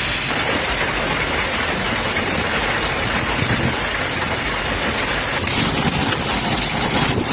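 Heavy rain pouring down as a steady, dense hiss. The sound changes abruptly twice, about a third of a second in and again about five and a half seconds in, at cuts between storm clips.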